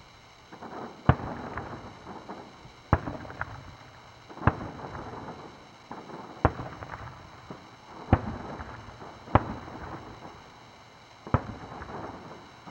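Aerial fireworks shells bursting, about eight sharp booms a second or two apart, each followed by a trailing crackle.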